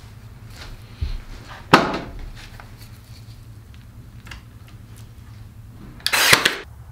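A Ryobi AirStrike cordless brad nailer fires a brad into a log near the end, a sudden half-second burst. Earlier, a single sharp knock of wood about two seconds in, with a duller thump just before it.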